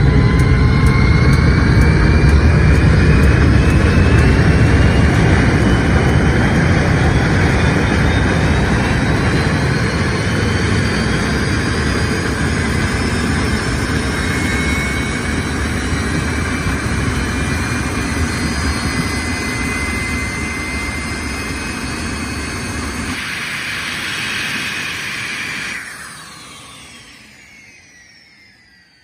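Twin jet engines of a Ferrari Enzo-bodied jet dragster running with afterburner: a loud, dense roar with a whine that climbs in pitch. Near the end the roar drops off sharply and a falling whine fades away.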